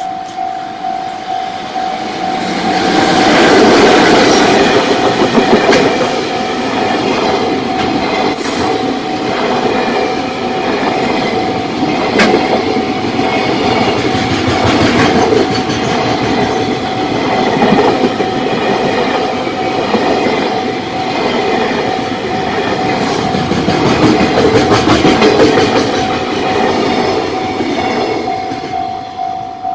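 A JR Freight train passing close by: a long rush of wheels on rail with a steady clickety-clack over the rail joints, and two brief high wheel squeals. A level-crossing alarm rings in a steady pulsing tone throughout.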